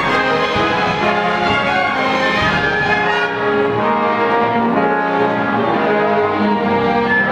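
Symphony orchestra playing, its string section bowing sustained chords that change every second or so, at a steady loud level.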